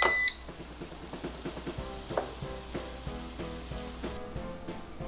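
A short, loud electronic beep, then reheated fried chicken and fries sizzling in an air fryer basket just out of the heat, over soft background music. The sizzle stops about four seconds in.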